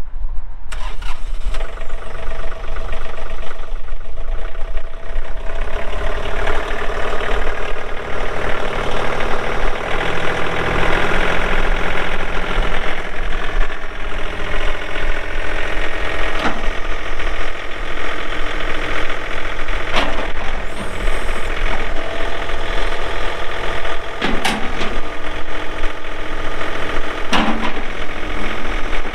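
John Deere 3039R compact tractor's diesel engine running steadily while the front loader is worked, with several sharp clunks in the second half.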